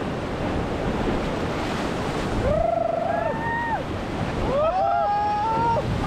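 Rushing river water and wind buffeting the GoPro microphone. A long, wavering holler rises out of the noise about halfway through, and another follows near the end.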